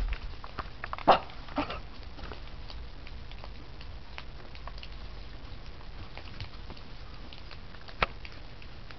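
Shiba Inu dog moving about, with scattered small clicks and taps. A few short sharp sounds stand out: the loudest about a second in, a smaller one just after it, and another near the end.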